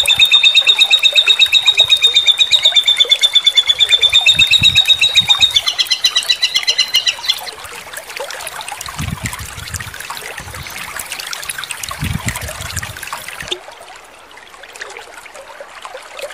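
A songbird's rapid, ringing trill of about ten even notes a second, the kind of 'tembakan' phrase used in bird-training recordings. It switches to a different, faster figure about five seconds in and stops about two seconds later. After that a steady hiss like running water remains and fades down near the end.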